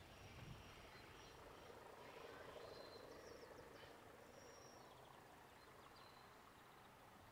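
Near silence: faint bird chirps now and then over quiet countryside ambience.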